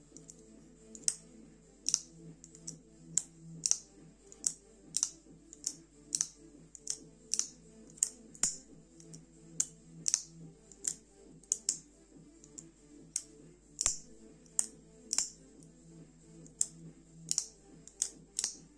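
Folding knife's lock clicking sharply again and again, about one to two clicks a second, as the blade is opened and closed over and over, with quiet background music.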